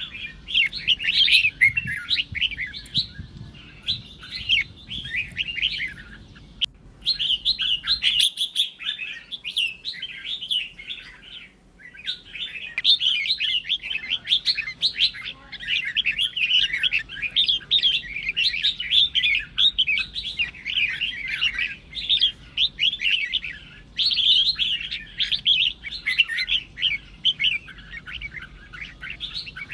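Red-whiskered bulbul singing its combative song, meant to rouse rival bulbuls: fast, tumbling runs of chirped and whistled phrases with hardly a pause, broken briefly about 7 and 12 seconds in.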